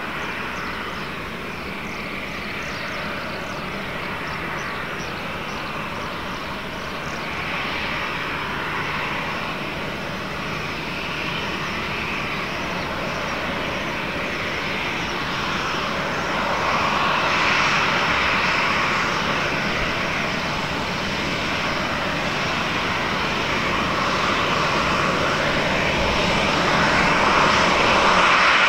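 Jet engines of a Boeing 737-800, its two CFM56-7B turbofans, running at taxi power: a steady rushing whine that grows louder as the airliner taxis closer.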